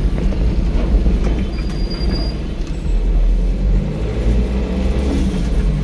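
Car cabin noise while driving: steady low engine and road rumble heard from inside the moving car.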